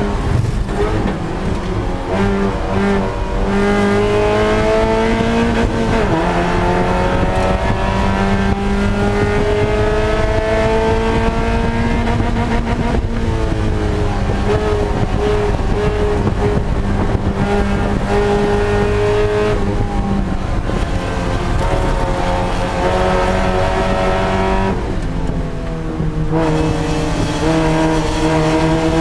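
Spec Miata's four-cylinder engine at racing speed, heard from inside the stripped cockpit. Its pitch climbs slowly and drops sharply three times at gear changes, then dips briefly near the end when the throttle is lifted.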